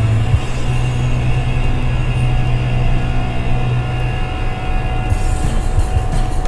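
Chevy pickup truck driving, a steady low engine and road drone, with music playing underneath. A higher hiss joins about five seconds in.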